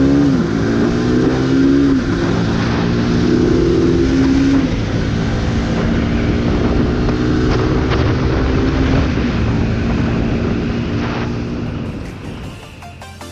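Motorcycle engine accelerating through the gears, its pitch climbing and dropping back at each of three upshifts, then running at a steady cruise with wind rushing over the bike. The sound fades near the end.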